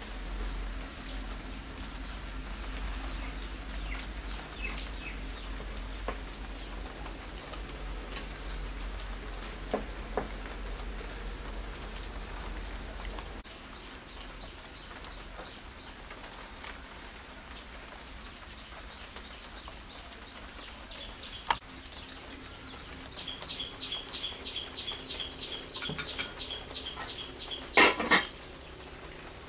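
Dishes and utensils being handled while rice is served: faint clinks over a steady low hum, which stops about halfway through. Later a bird calls a rapid run of high chirps, about four a second, and near the end there are two loud clatters of dishes.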